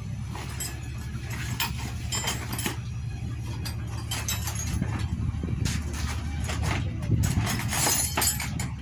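Metal tools clicking and clinking against the motorcycle's engine parts as it is being taken apart, over a steady low hum; the clinks come thickest in the second half.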